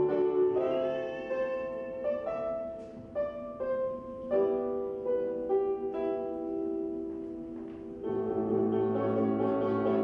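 Live instrumental music: an upright piano plays a slow line of held notes, and about eight seconds in the sound grows fuller and louder as a trumpet joins.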